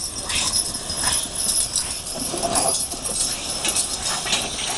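A team of draft horses dragging a weighted pulling sled over dirt: hooves striking the ground and harness and trace chains clinking and jangling irregularly.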